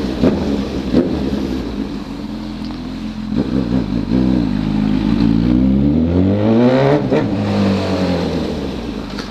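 Honda CB1000's inline-four engine through a 4-into-1 exhaust, running at low revs at first, then revved up with pitch climbing for about three seconds before the throttle shuts off sharply about seven seconds in and the revs fall away.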